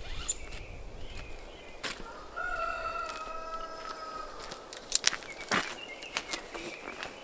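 A rooster crows once, a held call of about two seconds, while a ratchet tie-down strap clicks and rattles as it is worked loose.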